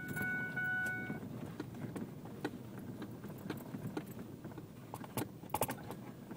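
Vehicle cabin rumble while driving slowly over a bumpy dirt road, with scattered rattles and knocks from the cab. A steady high tone stops about a second in.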